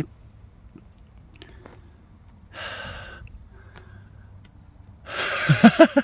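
A man's short breathy exhale, like a sigh, about halfway through, with a few faint clicks around it.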